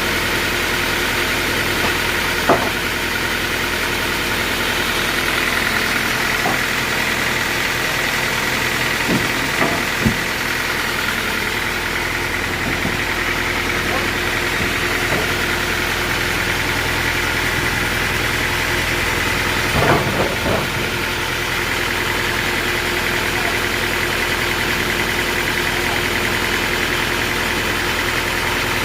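Homemade sawmill running steadily, engine-like, with a high steady whine. A few sharp knocks stand out: one a few seconds in, two close together about a third of the way through, and a short cluster about two-thirds through.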